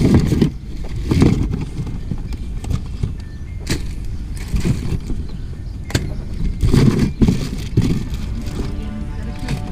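Irregular thumps and clatters of items being handled and put into a container, about eight knocks over a steady low rumble.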